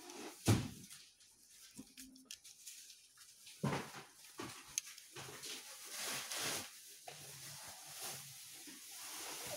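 Handling noise of a plastic camping lantern: scattered knocks and clicks as its parts are fitted and it is turned over and set down, with rustling of paper beneath it.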